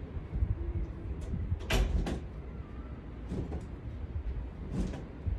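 Uneven low rumble of wind buffeting a phone's microphone, with a few brief sharp sounds; the loudest comes a little under two seconds in.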